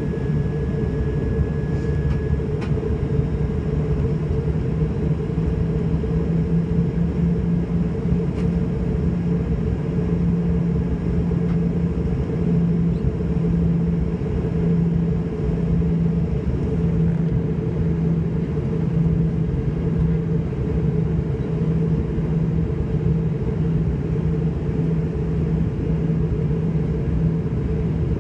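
Steady cabin noise of an airliner in flight: a constant low engine drone over the rush of air, with a low hum that throbs gently from about ten seconds in.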